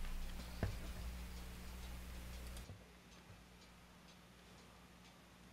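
Faint handling as a drill bit is set on the rivet of a die-cast toy car, with one light click about half a second in, then near silence; the cordless drill is not yet running.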